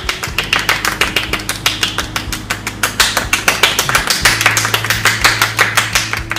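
Three people clapping their hands quickly and unevenly, over background music.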